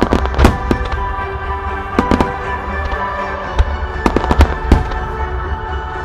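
Fireworks shells bursting in quick succession, a string of sharp bangs, over music played on the show's loudspeakers.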